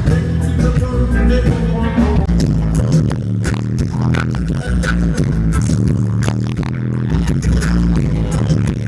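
Loud music over a concert sound system, with a heavy bass line and sharp drum hits. A singing voice is heard over it for the first couple of seconds.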